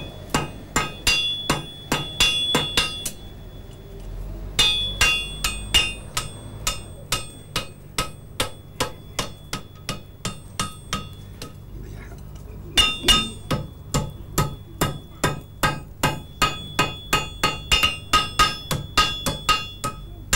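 Blacksmith's hammer striking red-hot iron on the horn of an anvil in a steady run of blows, about three a second, the anvil ringing high on many strokes. The hammering pauses briefly twice.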